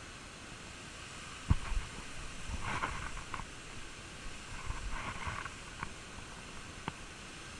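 Steady hiss with a sharp knock about one and a half seconds in, then two short stretches of rustling or crunching and a single click near the end.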